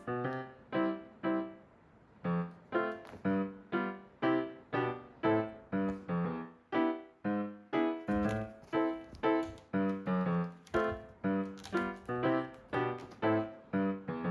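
Background music: a light keyboard melody of short, decaying notes, about two a second.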